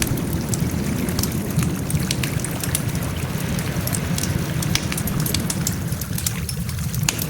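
Wood fire crackling: frequent small, sharp, irregular pops and snaps over a steady low rumble.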